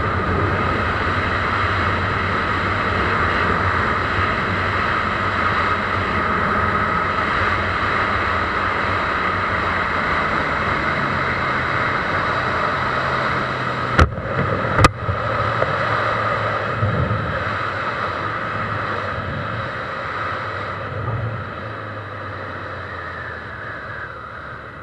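Honda CB1000R's inline-four engine running under a steady rush of riding wind, recorded on the moving bike. The engine note slowly drops in pitch near the middle, two sharp knocks come about a second apart just past halfway, and the sound dies down toward the end as the bike slows.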